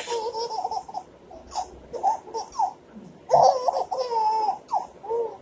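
A one-year-old baby laughing and squealing in short, high-pitched bursts.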